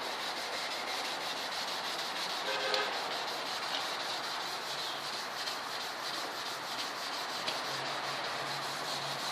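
400-grit wet sandpaper rubbed by hand over a plastic car headlight lens: a steady gritty scrubbing as the yellow oxidized film is sanded off.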